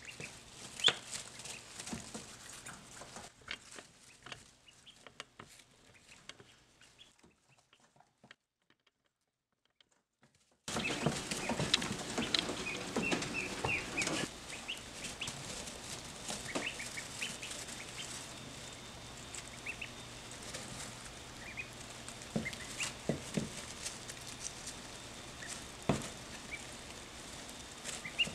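A black crested duckling peeping in short, high, rising chirps, with light taps as it pecks at a rose stem's leaves on a wooden table. The sound drops to near silence for a few seconds about a third of the way in, then returns louder with a quick run of peeps before thinning to scattered peeps and taps.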